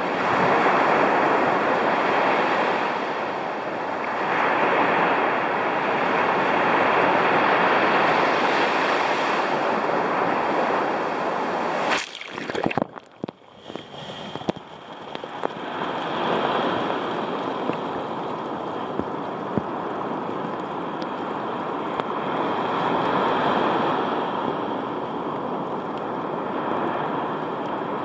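Heavy storm surf breaking and washing up a sand beach at the water's edge: a steady rushing wash that swells and eases every few seconds. About twelve seconds in there is a sharp knock, and the sound drops away for about three seconds before the surf comes back.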